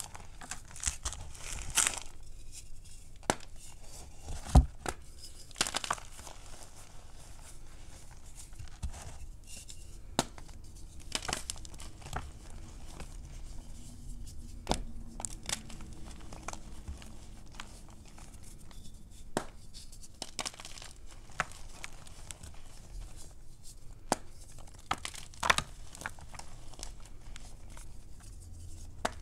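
Fingers squeezing and crumbling cornstarch and gym chalk: irregular soft crunches and crackles as the powdery crust breaks, with louder sharp snaps now and then.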